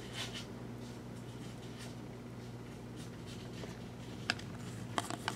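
Faint sliding and tapping of trading cards handled in the hands, with a few small clicks about four and five seconds in. Underneath is a low steady electrical hum of room tone.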